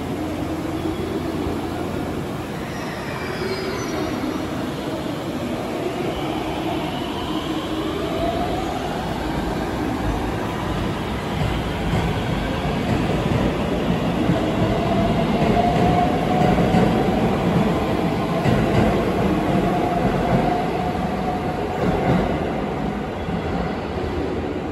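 Electric train passing through the station without stopping: wheels on rail with a motor whine that rises in pitch and then holds steady. The wheel noise grows louder toward the middle and then eases.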